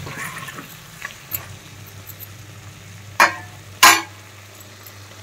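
Vegetables sizzling faintly in a pan on the stove, with a few light clicks and two loud clanks of a utensil against a cooking vessel about three and four seconds in.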